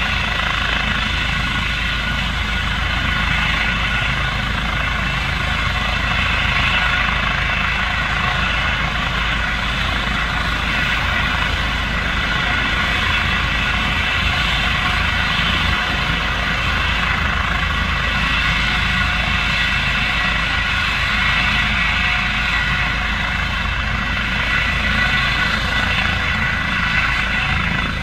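Eurocopter EC135 air ambulance helicopter running steadily on the ground ahead of lift-off: a constant turbine whine over a low rotor rumble.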